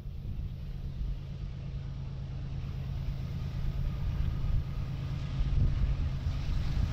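Diesel locomotives of a loaded or empty coal train running with a steady low engine rumble, growing louder through the second half as they come closer.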